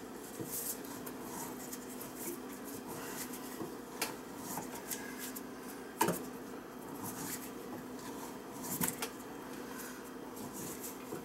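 Copper water pipe and a metal hand tool being handled overhead: a few scattered clicks and knocks, the sharpest about six seconds in and a short run of them near nine seconds. A steady low hum runs underneath.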